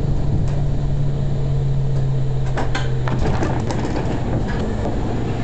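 Zurich VBZ tram running along its track: a steady low hum from the drive that drops in pitch about three seconds in. From about halfway in, a run of sharp clicks and knocks comes from the wheels on the rails and the rattling car body.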